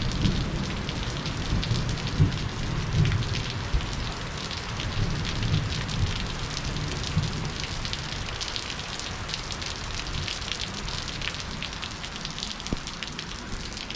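Heavy rain falling steadily, with many small drop ticks, and a low rumble of distant thunder that fades over the first half.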